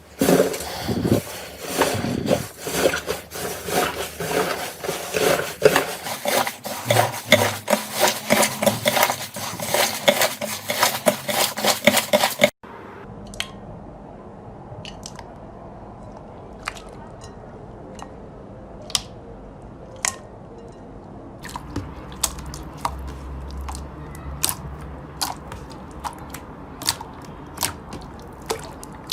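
Slime being squeezed and worked by hand, a dense, fast run of crackling and squelching. It cuts off suddenly about twelve seconds in and gives way to quieter, scattered clicks and pops as the slime is pressed.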